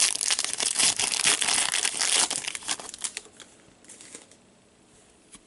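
Crinkling of a hockey-card pack wrapper as gloved hands tear it open and pull the cards out. It is loud for about the first two and a half seconds, then dies away to a few soft rustles of card handling.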